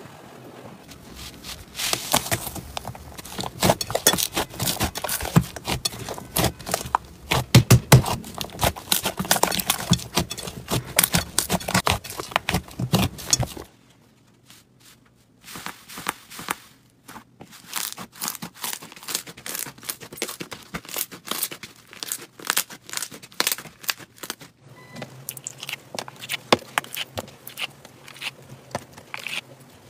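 Slime covered in paper labels being pressed and worked by hand, a dense crinkling and crackling for about 14 seconds that cuts off abruptly. After a short quiet, sparser crackles and pops follow as other slimes are handled.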